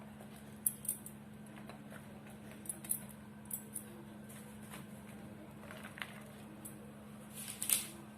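Vegetables being handled and put into basins: scattered light clicks, knocks and rustles at irregular intervals, the loudest near the end, over a steady low hum.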